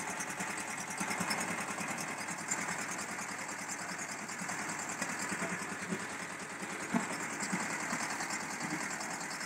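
Concrete mixer running: its small stationary diesel engine runs steadily with a rapid even clatter, driving the rotating drum, with a few light knocks.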